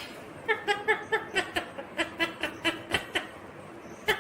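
Ringneck parrot giving a quick run of short chuckling notes, like mimicked laughter, about a dozen in a row before stopping about three seconds in.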